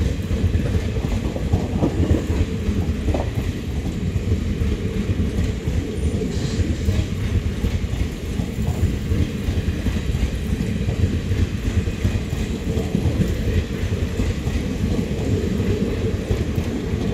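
Indian Railways ICF passenger coaches rolling past, with a steady rumble of their wheels running over the rails.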